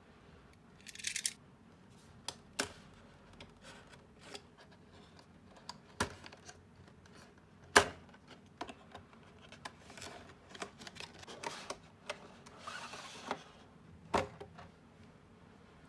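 Hands handling and opening a cardboard retail box and its clear plastic packaging tray: a string of sharp taps and clicks from card and plastic, the loudest a little before the middle, with a short scraping rush about a second in and a longer soft rustle near the end.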